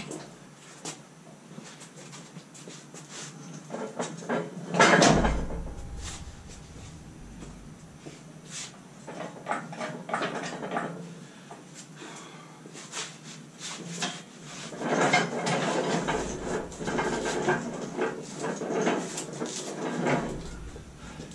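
A steel gantry crane carrying a lathe being pushed across a concrete floor: knocks and clanks of steel, a heavy clunk about five seconds in, and a longer stretch of rolling rumble and rattling near the end as the load moves.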